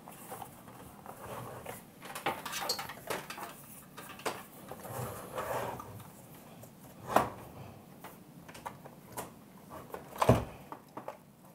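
Plastic JVC GR-SXM250U camcorder being handled while a power cable's barrel plug is pushed into it: rustling and scattered small clicks, with two sharper clicks about seven and ten seconds in.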